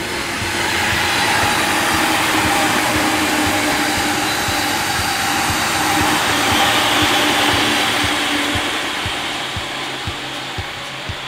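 A green-and-orange striped JR commuter electric multiple unit passing at speed. Wheels on rail make a steady rush, with a faint motor hum under it, that swells over the first second and eases off near the end.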